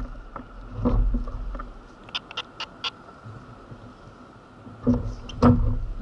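Knocks and thumps on a plastic fishing kayak as the angler moves and handles his rod, about a second in and again near the end, with a few light, sharp clicks in between.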